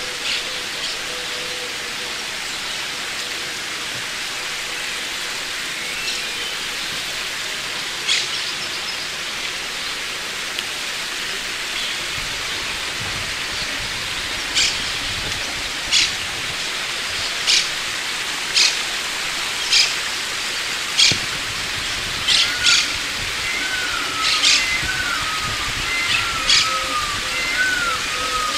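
Small birds calling over a steady rushing hiss. From about halfway, a sharp, very short high chirp comes roughly once a second. Near the end, a short rising-and-falling whistled note repeats several times.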